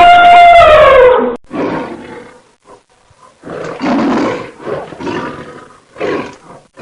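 Recorded animal calls: a long pitched call that falls in pitch and stops about a second and a half in, followed by a series of rough, noisy calls of uneven length.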